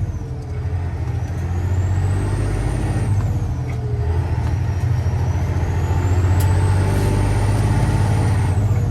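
Semi truck's diesel engine pulling under a heavy load, heard from the cab as a steady low rumble. A high whistle climbs, holds, then drops back twice over it.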